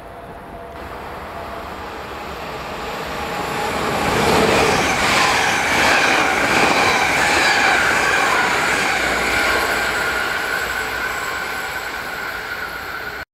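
A Dutch Railways (NS) double-deck electric passenger train approaching and passing close by, a rumble of wheels on rail with a high steady whine that swells to a peak midway and then fades. The sound cuts off suddenly near the end.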